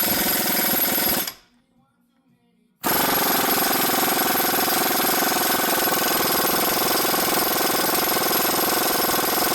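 Impact wrench hammering in two long runs, stopping about a second in and starting again about three seconds in, against a seized fitting on a hydraulic tilt cylinder that does not break loose.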